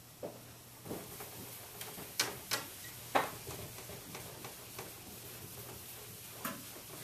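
Felt eraser wiping a chalkboard, a soft rubbing broken by several sharp taps and knocks of the eraser against the board.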